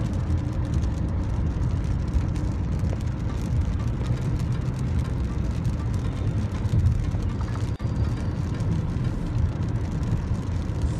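Steady low rumble of a moving car heard from inside the cabin: engine and tyres running on a wet highway. The sound drops out briefly just before eight seconds in.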